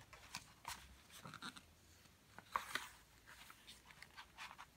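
Faint rustling and small clicks of hands handling the paper pages of a picture book, with a sharper click right at the start.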